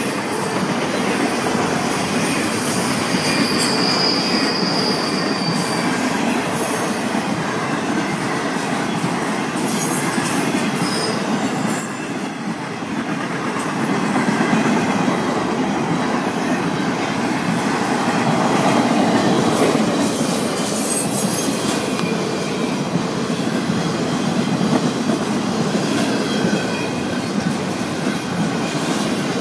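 Freight cars of a long intermodal train, double-stack containers and highway trailers on flatcars, rolling steadily past: a continuous heavy rumble of wheels on rail. A thin high wheel squeal rises out of it for a few seconds about three seconds in.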